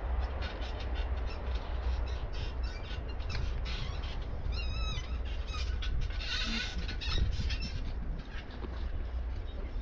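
Wind rumbling on the microphone, with scattered clicks and crackles, and a short wavering high-pitched chirp about halfway through, followed shortly by a brief hiss.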